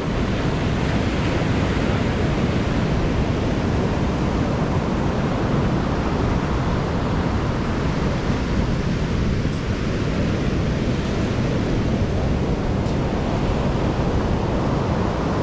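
Ocean surf breaking on a beach as a steady, even rush of noise, with wind rumbling on the microphone.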